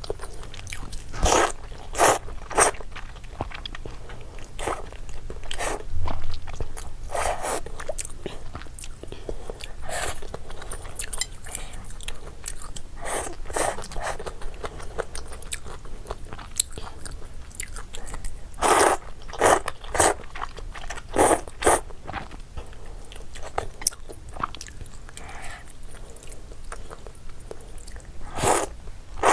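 Close-miked eating of noodles: irregular bites, crunches and chewing in short bursts, some in quick clusters of two or three.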